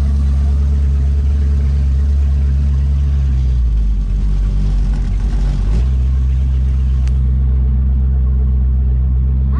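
Progression race boat's 509-cubic-inch big block Chevy V8 running, a loud, steady, deep drone. About three and a half seconds in, the engine note wavers and breaks up for roughly two seconds, then settles back to the same steady drone.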